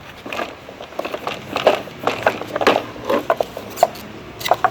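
A car A/C evaporator core being worked up out of its HVAC housing: irregular scraping, rustling and clicking.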